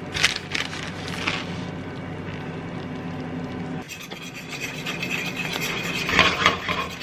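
A spatula scraping and stirring shredded cheese into a thick cream sauce in a stainless steel skillet, in rubbing strokes against the metal. The strokes come thicker from about halfway through, over a low steady hum.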